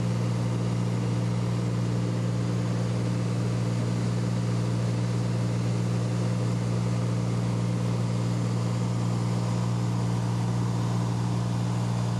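Light plane's engine and propeller droning steadily in flight, heard from inside the cabin, with a constant low hum that does not change in pitch.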